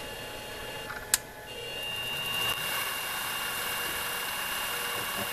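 A sharp click about a second in, then the mini mill's spindle motor spins up and runs steadily with a thin high whine.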